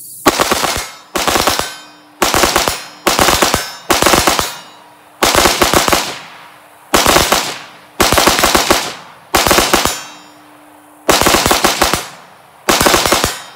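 AR-15 rifle with an 18-inch .223 Wylde match upper firing rapidly, in about eleven quick strings of shots with short pauses between. The rifle cycles through them without a jam or feed failure.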